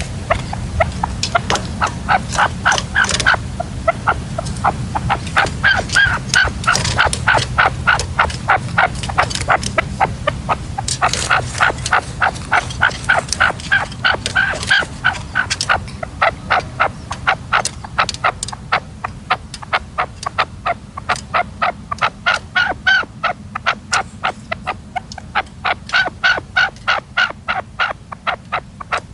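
Red-legged partridges calling: a long series of short, rhythmic call notes at about three a second, keeping on without a break.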